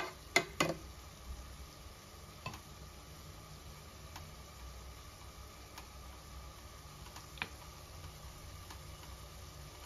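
A metal ladle knocks twice on the rim of a large steel cooking pot just under a second in, followed by a few lighter clinks and faint ticks spaced a second or two apart, over the low steady hiss of the pot simmering.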